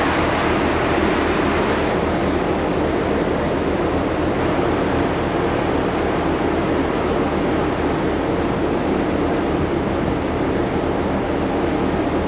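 Steady rushing of wind and sea on a ferry's open deck, over a low steady hum from the ship's engines.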